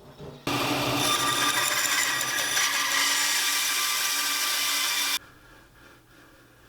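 Grizzly G0555XH 14-inch band saw with its 1.75 horsepower motor, running and cutting through wood: a steady sawing noise with a high whine. It starts suddenly about half a second in and stops suddenly a little after five seconds.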